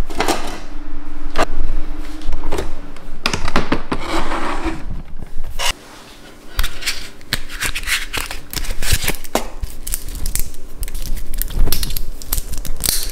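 Handling noise: many sharp clicks, knocks and rustles over a faint steady hum, beginning as the slats of plantation shutters are pushed open and later as a cable is handled at a desk. A brief quiet gap falls a little before the middle.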